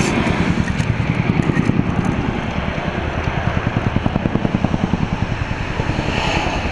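Boeing CH-47 Chinook's tandem rotors beating in a rapid, steady chop over a low engine rumble.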